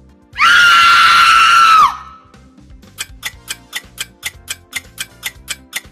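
A red fox's scream, one harsh, high call lasting about a second and a half. It is followed by a quiz countdown timer ticking about four times a second over light background music.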